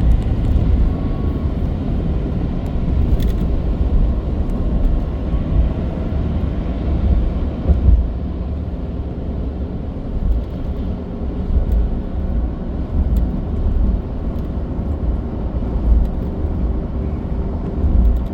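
Steady low drone of a truck's engine and road noise heard from inside the cab while driving, with faint pitched engine hum above the rumble.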